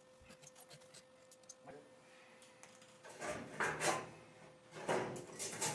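Two bouts of scraping and rubbing, about three and five seconds in, each lasting around a second, over a faint steady hum and a few light ticks.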